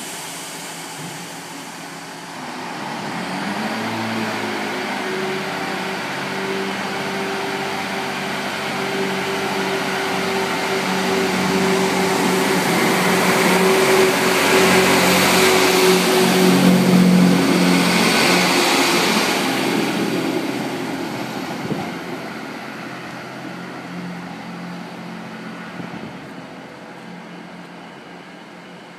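Class 158 diesel multiple unit departing: its underfloor diesel engines rev up a few seconds in. The engine note and train noise are loudest as the carriages pass close by, then fade as the train pulls away.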